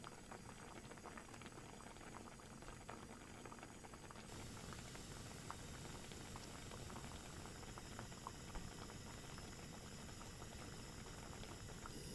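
Water at a boil in a pan with webfoot octopus being parboiled in it: faint, steady bubbling with small scattered pops.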